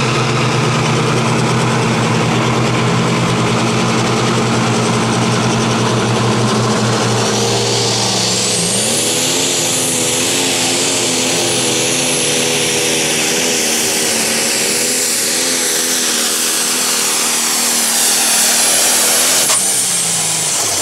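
Turbocharged diesel engine of an International pro stock pulling tractor, running steadily at first, then revving up sharply about eight seconds in and running hard at high revs under the load of the sled. A high whine rides over the engine while it runs hard and stops near the end.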